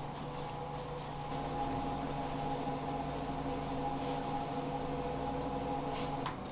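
A steady mechanical hum made of a few constant tones over a low rushing noise, cutting off abruptly just before the end.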